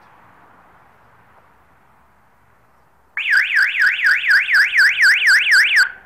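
12-volt electronic siren set off by a motion-sensor floodlight switching on: a loud, fast up-and-down warble, about four sweeps a second, that starts suddenly about three seconds in and cuts off just before the end.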